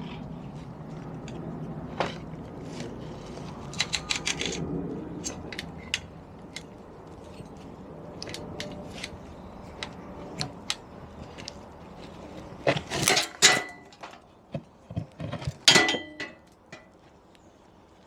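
Chain breaker tool and steel roller chain being worked by hand: scattered metal clicks, then loud clinks and rattles with a short ringing note a few seconds before the end, as the tool is wound in to push out a link pin.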